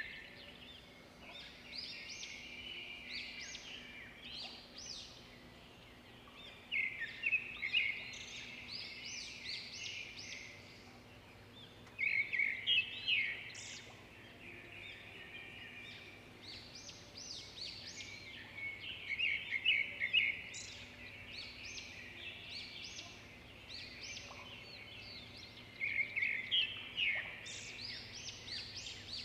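Bird chirping in short bursts of rapid notes, recurring every six or seven seconds, over a faint steady hum.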